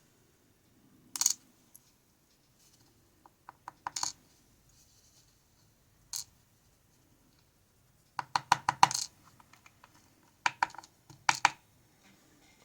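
Light metallic clicks and short rattles of small pin tumbler lock parts being handled during disassembly: single taps about a second in and around four and six seconds, a quick run of clicks around eight to nine seconds, and two more clicks near the end.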